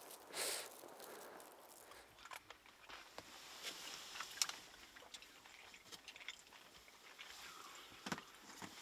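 Faint, scattered clicks and rustles of small movements inside a car, with a brief louder crunch about half a second in.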